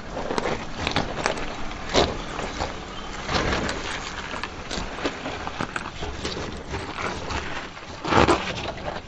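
Mercedes G-Class crawling slowly over rock and loose stone: tyres crunching over gravel, with many sharp clicks and knocks of stones under the wheels over a low engine hum. The loudest crunches come about two seconds in and near the end.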